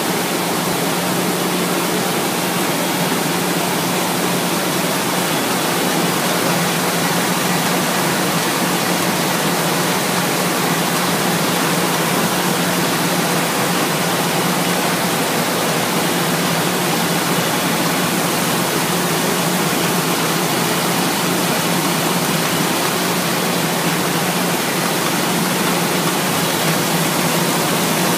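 Gantry-type film slitting machine running: a steady, even rushing noise with a low hum underneath.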